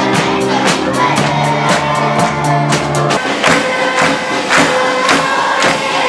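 A children's school orchestra playing, with drum kit and clarinets, while a children's choir sings along over a steady drum beat. The low held notes drop away about halfway through.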